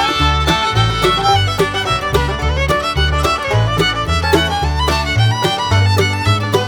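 Background music: an up-tempo bluegrass-style tune led by fiddle over a steady plucked bass.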